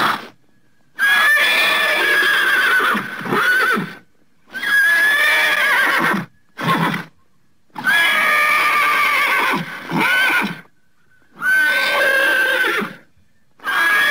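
A horse whinnying again and again, about six high, quavering whinnies of one to three seconds each, with short silent gaps between them.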